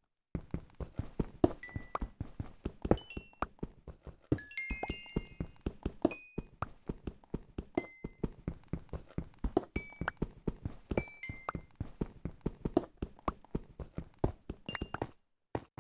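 A rapid, irregular run of knocks and clicks, several a second, some with short high metallic pings; a cluster of pings rings together about five seconds in, and the sound cuts out abruptly near the end.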